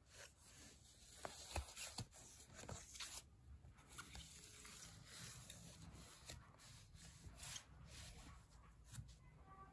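Near silence: room tone with faint rubbing and a few soft clicks, the loudest of them between about one and three seconds in.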